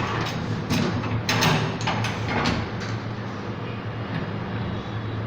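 Metal clanks and sliding knocks from a vacuum circuit breaker's mechanism being worked by hand, a few sharp knocks in the first half, over a steady electrical hum.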